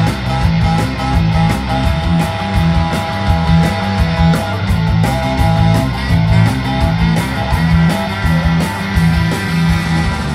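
Live ska-punk band playing an instrumental passage with no vocals: electric guitar over a repeating bass line and drums keeping a steady beat.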